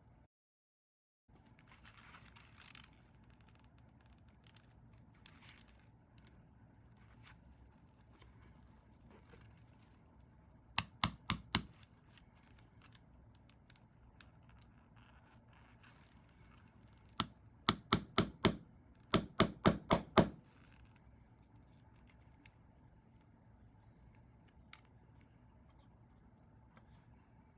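Quick runs of sharp clicks or taps from work on small parts: about four around eleven seconds in, then about eight more from about seventeen to twenty seconds in, with faint handling noises and occasional single clicks between.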